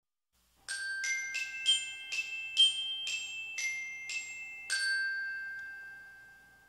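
A short intro jingle of about ten bell-like chime notes struck one after another, climbing and then stepping back down to the starting note; the last note rings on and fades away.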